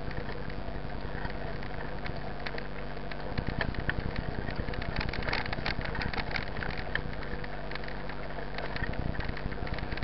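Mountain bike riding on a dirt road: steady rumble of tyres and wind with bursts of clicks and rattles over bumps, busiest from about three to six seconds in.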